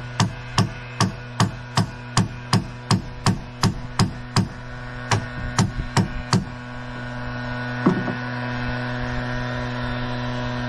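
A small sledgehammer striking a claw bar, driving it under old nails in a reclaimed oak beam: a quick, even run of about sixteen blows, two to three a second, that stops about six seconds in, then one more blow a little later. A steady hum runs underneath.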